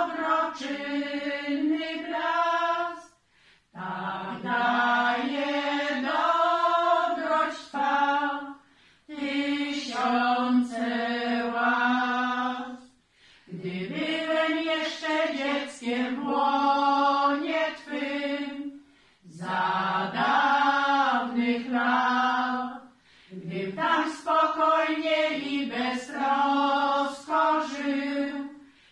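A group of seven women singing a cappella, in sung phrases of a few seconds each with short pauses for breath between them.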